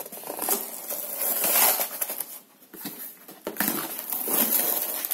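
Cardboard box being opened by hand: flaps folded back and an inner cardboard sleeve lifted, giving scraping, rustling cardboard noise in two spells with a short pause about halfway through.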